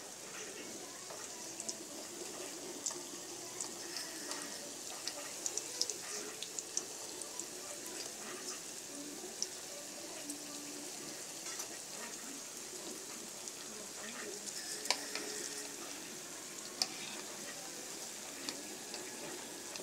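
Imitation crab sticks shallow-frying in oil in a wok: a steady sizzle with frequent small pops, and now and then light clicks of a metal spatula and tongs turning the sticks.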